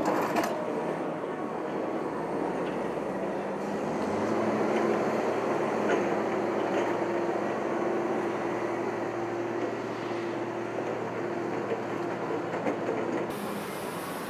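Wheel loader's diesel engine running under load with a steady mechanical rumble, a humming note coming in about four seconds in, and a few light metal knocks.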